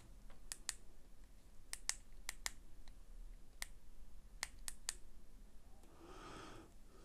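Plastic buttons on an Aspire Rhea X vape mod clicking as its modes are stepped through: about a dozen sharp clicks, several in quick pairs. A soft breath follows about six seconds in.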